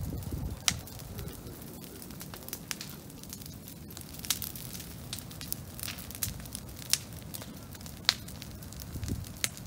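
Brush-pile bonfire crackling: many irregular sharp pops and snaps from burning green brush over the low, steady rush of the flames, a few pops louder than the rest.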